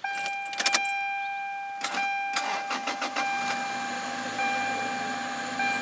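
1994 Toyota Celica being started from the driver's seat on its first start after a clogged fuel filter was replaced: the starter cranks, and about three and a half seconds in the engine catches and runs. A steady high tone sounds over it throughout.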